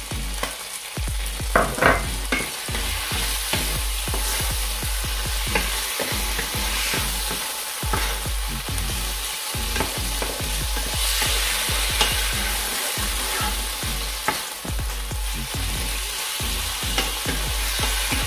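Chicken livers with onions and garlic frying in a pan, a steady sizzle, while a wooden spoon stirs them, with frequent short scrapes and knocks against the pan.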